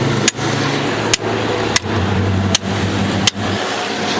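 Steady, loud mechanical noise with a low hum, broken by a sharp click every second or so.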